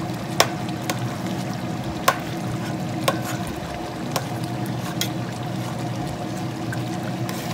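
A metal spoon stirring thick oxtail stew in a stainless steel pot, clinking sharply against the pot about five times, with the gravy sloshing. A steady low hum runs underneath.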